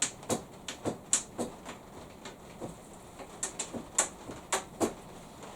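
Irregular light clicks and clinks of small metal parts and tools being handled on a workbench.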